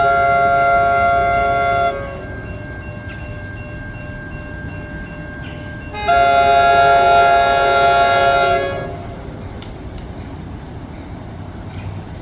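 Restricted Nathan K5LA five-chime air horn on an NJ Transit Comet V cab car sounding two long blasts as a steady chord. The first blast cuts off about two seconds in; the second starts about six seconds in and lasts nearly three seconds, with the train's low rumble underneath.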